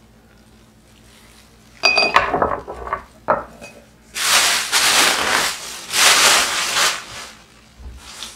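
Green glass soju bottles clink together with a brief ringing about two seconds in, followed by a few knocks as they are set down. A thin plastic grocery bag then rustles loudly for about three seconds.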